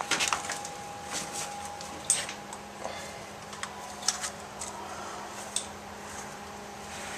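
Scattered small metal clicks and taps as hand tools work at the open shell of a core-type suction filter-drier, over a steady background hum.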